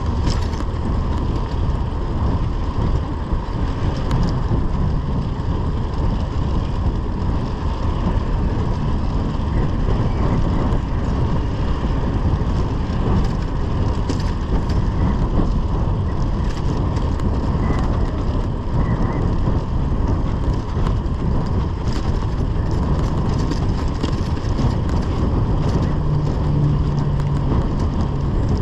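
Steady riding noise from a Brompton folding bicycle on a paved cycle lane: wind over the microphone and tyres on asphalt, over a low traffic rumble.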